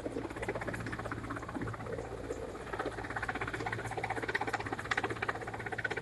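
Helicopter hovering with an underslung load, heard at a distance: a rapid, even chop from the main rotor over a steady low turbine hum.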